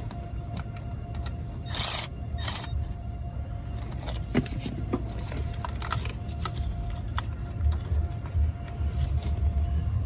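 Hands working in an engine bay around the ignition control module and wiring harness: scattered clicks, knocks and metallic rattles, with two short, loud rustling scrapes about two seconds in, over a faint steady hum.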